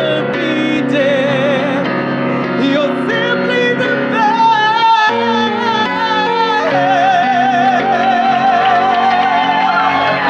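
Live solo voice with piano accompaniment: the singer belts and riffs through wavering runs, then holds one long high note with vibrato near the end.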